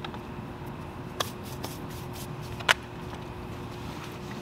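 Hands handling parts and packaging: a few sharp clicks and taps, the loudest about two-thirds of the way through, over a steady low hum.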